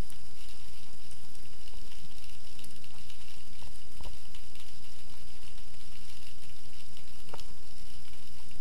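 Underwater ambience picked up through an action camera's waterproof housing: a steady hiss with a low hum, and a couple of faint clicks about four seconds in and near the end.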